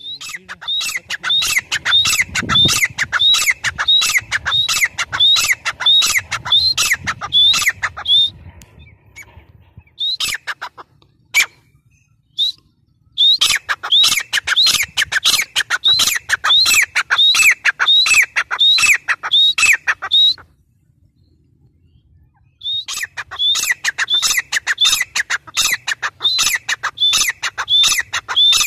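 Gray francolin calling: a loud, rhythmic run of shrill, repeated notes, about two a second, given in three bouts with short pauses in between.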